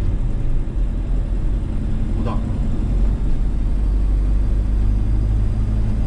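Inside the cab of a Maxus V90 manual van, its engine drones steadily while pulling in third gear, with road noise under it.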